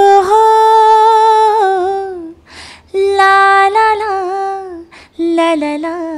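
A woman singing unaccompanied, the opening of a Nepali dance song. She sings three phrases of long held notes, each ending in a wavering ornament, and the third phrase moves through quicker ornamented notes.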